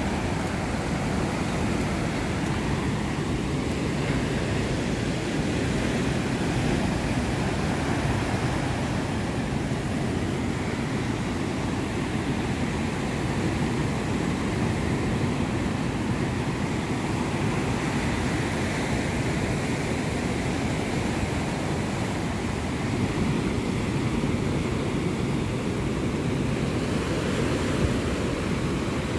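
Ocean surf breaking and washing up a sandy beach in a steady rush of noise.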